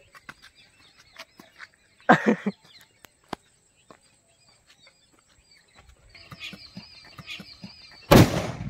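A sutli bomb (a twine-wrapped firecracker) going off under an upturned tumbler with a single loud bang about eight seconds in.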